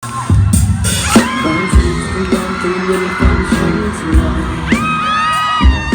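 Intro of a Thai pop song: loud electronic backing with heavy kick-drum thumps and high lines that slide up and hold, about a second in and again near the end.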